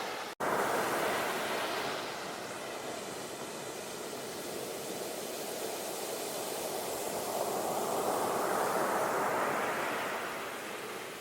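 Ocean waves washing onto a shore as a steady rushing surf; one wave swells up and recedes near the end. Just after the start the sound cuts out for a split second.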